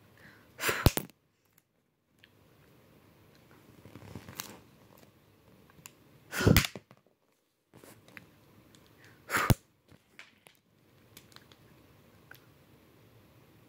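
A girl's mouth close to the microphone while she eats Smarties candy tablets: three short, loud puffs of breath or mouth noise, the first about a second in and two more several seconds apart, with faint clicks of candy between.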